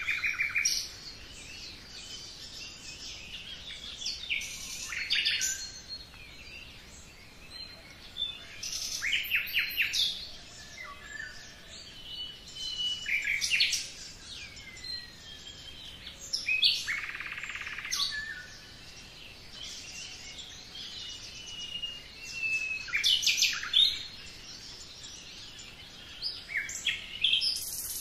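Songbirds singing: short, varied phrases about every four seconds, with thin, high whistles in between.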